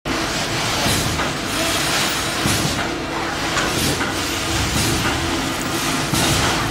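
Steady rushing background noise, with intermittent crinkling as a clear plastic bag of flat shoelaces is handled.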